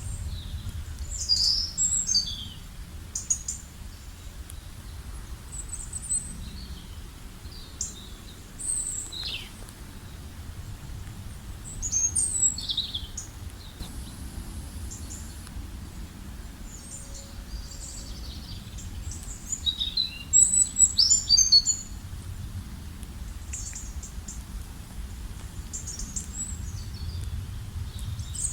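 Several small birds chirping and calling in short scattered bursts of quick, high notes, with a busier run of rapid chirps about two-thirds of the way through, over a steady low rumble.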